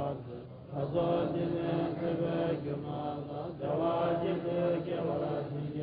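Tibetan Buddhist lamas chanting a liturgy in low, held voices, in phrases with a short pause about half a second in.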